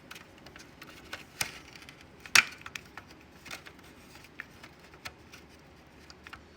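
Scattered light plastic clicks and taps as a car charging port is handled and slid into a plastic dash bezel, the sharpest click about two and a half seconds in.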